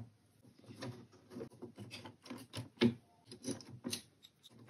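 Light, irregular clicks and taps of a screwdriver, small screws and a metal heat-sink bracket against a plastic instrument cluster housing as it is screwed back together, with one sharper tap a little past halfway.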